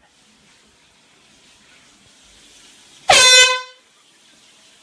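A handheld air horn blasting once, a short, loud, reedy honk about three seconds in.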